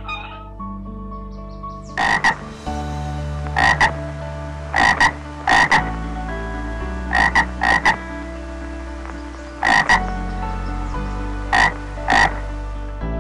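An animal calling in short, repeated croaks, about a dozen of them and mostly in quick pairs, starting about two seconds in.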